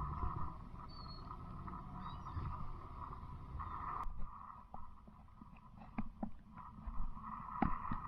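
Water sloshing around a stand-up paddle board, with a low rumble. A few short knocks come in the second half.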